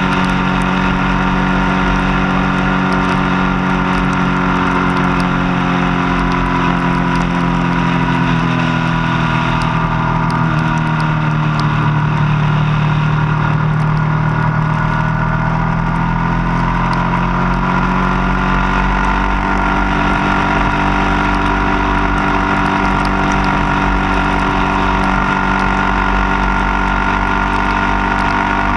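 Motorcycle engine running at road speed, heard from on board with wind noise. The engine note sinks about a third of the way in as the bike slows, then rises again as it picks up speed.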